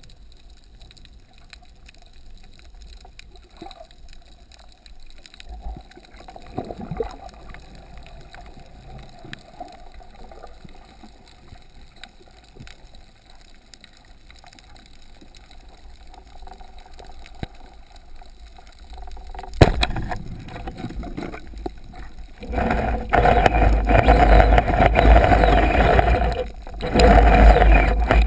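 Water moving around an underwater camera housing just below the surface. It is a faint hiss with light clicks at first, then turns loud and turbulent about twenty seconds in.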